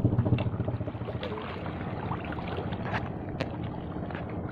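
Shallow estuary water lapping and washing over a submerged stone ledge, with wind on the microphone. There are a couple of light clicks a little after halfway.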